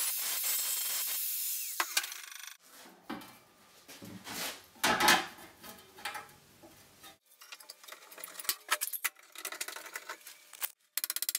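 Angle grinder cutting thin sheet metal, then winding down about two seconds in. After that come irregular knocks and clatter of wood strips and metal being handled and set down on a workbench, with the loudest knock about halfway through, and small clicks of a bar clamp being tightened near the end.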